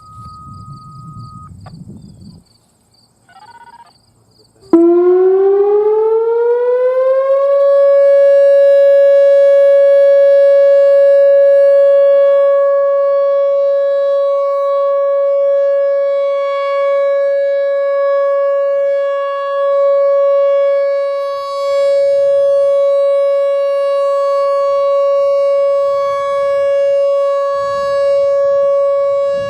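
Whelen Vortex R4 outdoor warning siren starting up about five seconds in, its pitch rising over about three seconds, then holding one loud steady tone: the Alert signal of a scheduled test. The level swells and dips slightly as it sounds.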